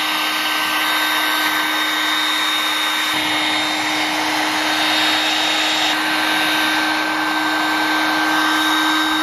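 Hand-held hot air gun running: a steady rush of blown air with a steady motor hum. It is aimed at the air compressor pump's crankcase to warm the cold pump so it will start.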